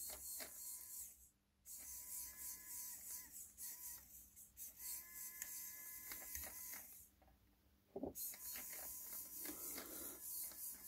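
N20 micro gear motor, rated 200 rpm at 6 volts, running and spinning a small RC model wheel, with a faint steady whir from its gearbox. It cuts out briefly twice, about a second in and again about seven seconds in.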